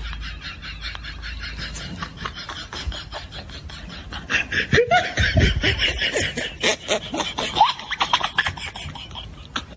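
People laughing in rapid fits of short pulses, getting louder with higher, squealing laughs about halfway through.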